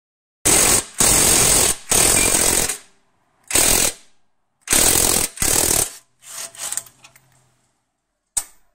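Cordless impact wrench hammering in six short bursts as it undoes a bolt on a front wishbone bush, then running more quietly with a steady low tone as the fastener frees, and one sharp click near the end.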